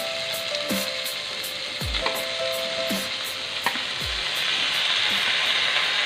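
Fish pieces and masala sizzling in hot oil in a wok as they are tipped in and stirred with a spatula; the sizzle grows louder about two-thirds of the way through.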